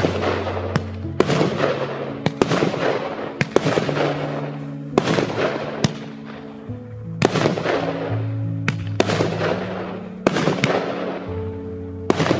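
Aerial fireworks bursting in quick succession, each sharp bang followed by crackling that fades away, over background music with held low notes.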